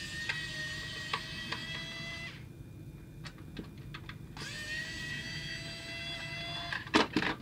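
Pen-style electric precision screwdriver running twice, each time for about two and a half seconds with a steady high whine, backing screws out of a diecast model's plastic display base. A few sharp clicks near the end.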